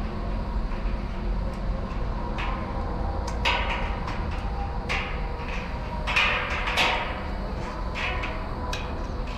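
Scattered metal clicks, knocks and short creaks from a 24-inch steel drum fan's tilt mount and wire grille as it is tilted by hand, with a cluster about six to seven seconds in. A steady low rumble runs underneath.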